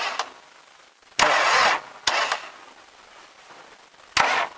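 MTZ-80 tractor's 24 V starter engaged in a few short bursts, the longest about half a second, with the diesel not catching. The starter is slipping rather than cranking the engine properly.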